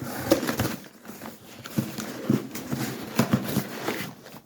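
Boxes and packaging being handled on a tabletop: an irregular string of light knocks and clicks with cardboard and paper rustling.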